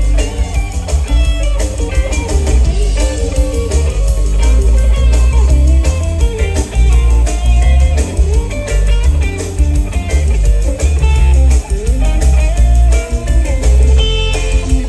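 Live rock band playing, led by a Languedoc hollow-body electric guitar with a winding lead line and pitch bends over a heavy, boomy bass-driven low end.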